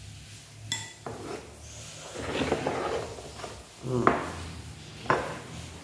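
A metal spoon clinks against ceramic dishes, with one bright ringing clink under a second in, followed by softer clatter of the spoon and plate and two sharp knocks near the end as food is handled.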